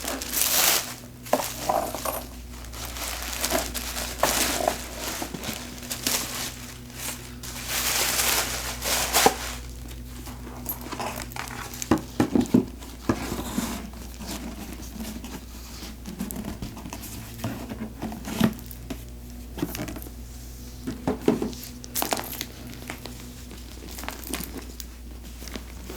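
Gift wrapping crinkling and rustling as a wrapped handbag is handled, in irregular bursts that are densest over the first ten seconds and then thin out into occasional rustles and sharp clicks. A faint steady low hum lies underneath.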